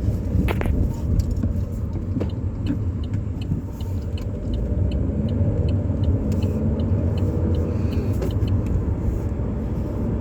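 Car driving along a road: a steady low rumble of engine and tyres, with a light, evenly spaced ticking through the middle few seconds.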